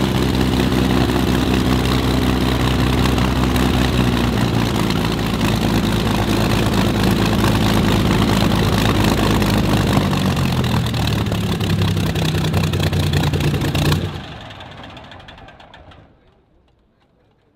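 Messerschmitt Bf 109 fighter's piston engine running on the ground, its note shifting in pitch a few times. About fourteen seconds in, the sound drops away and fades to near quiet over the next two seconds.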